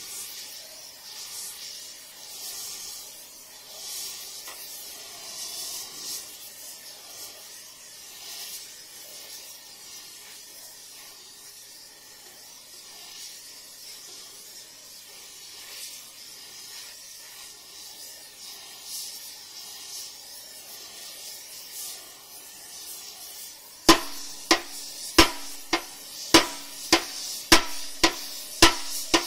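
Oxy-fuel heating torch hissing steadily as its flame heats a spot on a steel excavator stick. About 24 seconds in, a hammer starts striking the heated steel about twice a second, each blow ringing. This is heat-and-hammer straightening of the warped steel.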